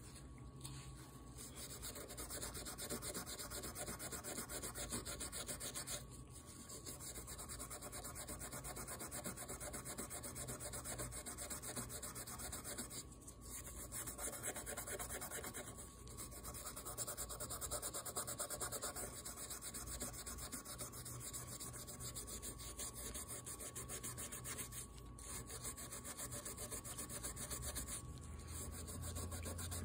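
Scotch-Brite pad scrubbing carbon smear off a Husqvarna 2100cd chainsaw's KS piston with WD-40, in rapid back-and-forth strokes. The scrubbing stops briefly a few times.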